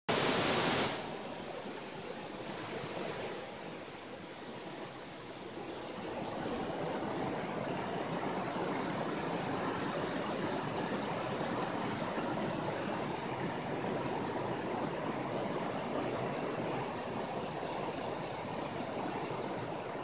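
Steady rushing of a river running over rocky rapids and small cascades, brighter and louder for the first three seconds or so, then an even wash of water noise.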